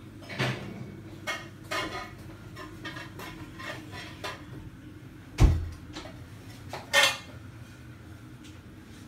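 Kitchenware being handled: scattered clinks and knocks of dishes, jars and cutlery, with a heavy knock about halfway through and a sharp clattering clink soon after.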